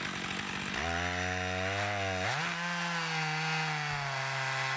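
Stihl MS461 two-stroke chainsaw on an Alaskan chainsaw mill throttling up from a lower speed about a second in. Its pitch climbs again a little after two seconds and then holds steady as it rips a slab from an ash log.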